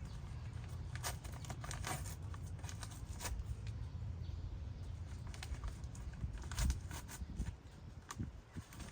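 Scattered light clicks and taps of plastic coil pack wiring connectors being handled and worked loose by hand, over a low steady rumble.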